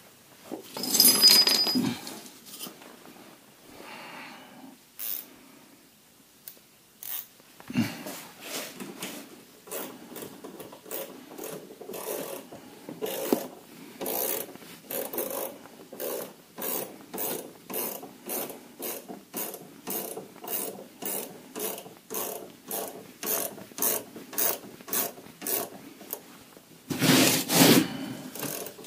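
Hand ratchet wrench clicking in short, evenly repeated strokes, about two a second, tightening a shock absorber mounting bolt. Louder rattling bursts come about a second in and again near the end.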